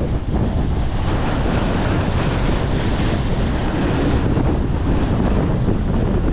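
Strong wind buffeting the microphone in a steady, heavy rumble, with the wash of waves under it.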